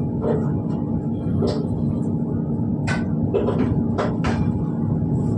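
Passenger train running, heard from inside the coach: a steady rumble with a low hum, broken by sharp clacks, several of them close together in the second half.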